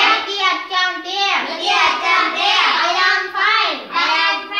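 Children's voices reciting aloud in a sing-song chant, without pause.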